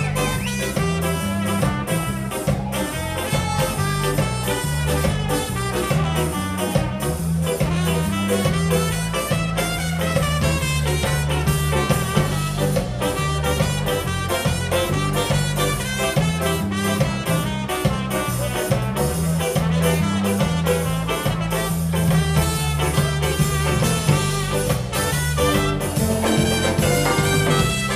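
A live ska band playing at a steady beat: a horn section of tenor and alto saxophones, trumpet and trombone over electric guitar, keyboards, bass guitar and drums.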